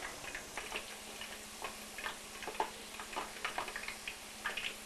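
Potato slices deep-frying in hot oil: irregular crackles and pops, several a second, over a faint steady hum.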